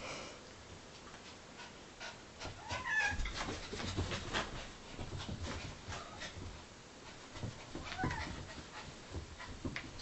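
A small dog and a cat play-fighting on carpet: soft scuffling and light knocks, with two short whines, one about three seconds in and one near eight seconds.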